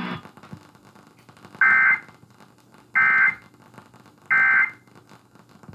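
Emergency Alert System end-of-message data bursts: three short, buzzy two-tone digital chirps about a second and a half apart, the code that marks the end of an emergency alert.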